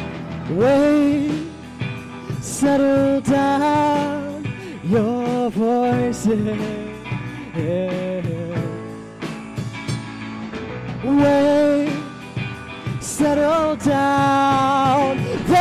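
Live band music: a sung melody in phrases over guitar accompaniment.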